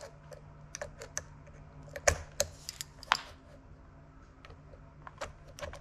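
Scattered sharp clicks and taps of a small metal pin and hand tool against the plastic heel mount of an Apex RK3 dive fin as the pin is pushed back through; the loudest click comes about two seconds in.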